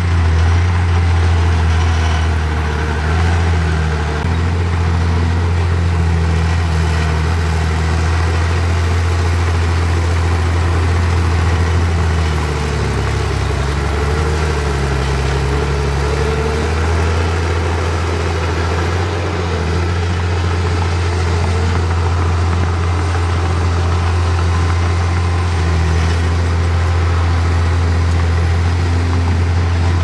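Heavy diesel engine of earthmoving machinery running steadily with a low, even note that wavers in pitch for a few seconds around the middle.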